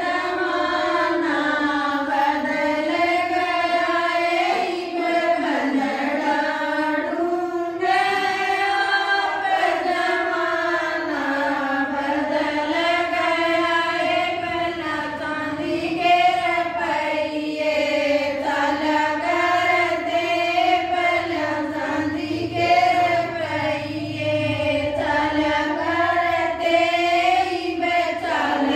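Women's voices singing a devotional bhajan together, one unbroken melody that rises and falls.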